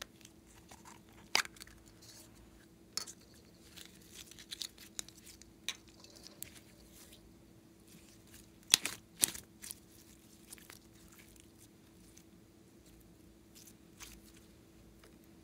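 Gold glossy slime being taken out of a clear plastic ball container and handled: soft sticky crackles and squishes, with a sharp plastic click about a second in and a pair of louder clicks near the middle.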